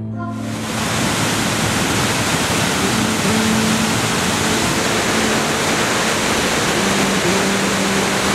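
Mountain waterfall rushing: a loud, steady rush of falling water that swells in during the first second.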